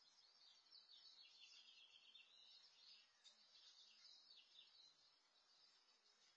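Near silence with faint bird chirping throughout.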